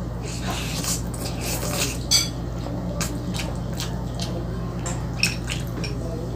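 Someone eating spaghetti, slurping and chewing the noodles, while a metal fork clinks sharply against a plate a few times. A steady low hum runs underneath.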